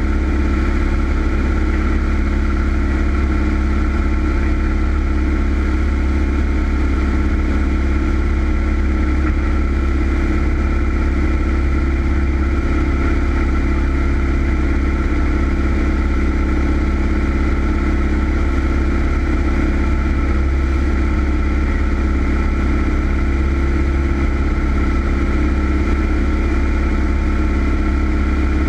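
Cessna's single piston engine and propeller droning steadily in flight, holding an even pitch.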